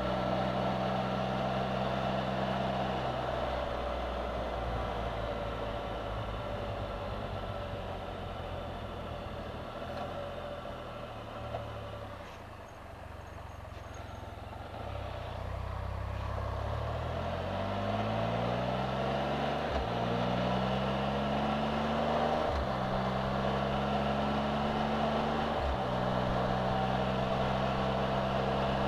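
Can-Am Spyder three-wheeled motorcycle engine heard from the rider's seat. It runs steadily, then eases off and drops to a low, quiet run as the machine slows for a turn. From about halfway through it accelerates, its pitch rising and falling back at three upshifts.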